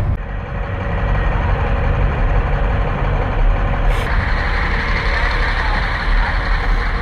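Boat engine running steadily: a low hum over a wide hiss of wind and water. About four seconds in, the sound changes abruptly and the hiss grows louder.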